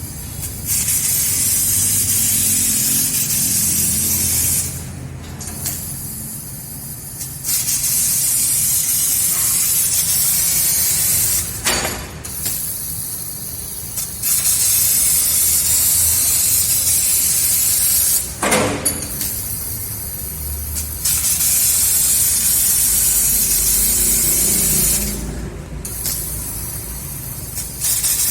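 A CNC laser cutter's high-pressure assist gas hissing at the nozzle as it cuts sheet steel, coming in stretches of three to four seconds with short quieter gaps between cuts. Two sharp clicks stand out, about twelve and nineteen seconds in.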